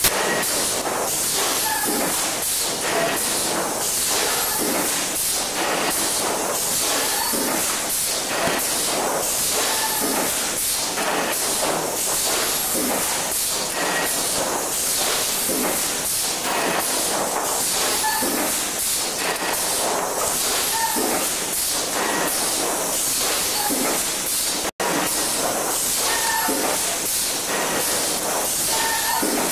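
Thermoforming machine running, with a steady hiss and faint short tones now and then; the sound cuts out for an instant about 25 seconds in.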